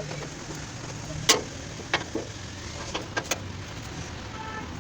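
Irregular sharp knocks and taps of tools on metal over a steady low hum, the loudest a little over a second in.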